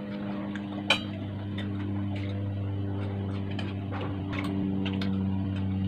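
Small clicks and ticks of eating at a table, from a spoon on dishes and mouth sounds, over a steady low hum. There is one sharper click about a second in.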